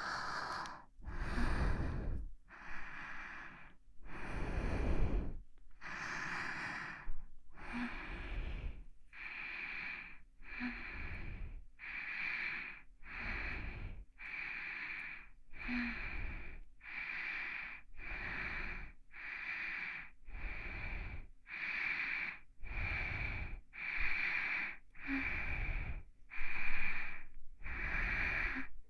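A person breathing softly and close to the microphone for ASMR, breaths in and out one after another in an even rhythm. The first few breaths are slower and longer, then they settle to about one breath sound a second.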